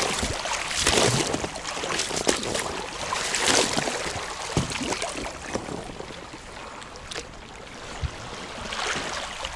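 Water splashing and trickling around a boat drifting down a river current, with scattered light knocks and splashes.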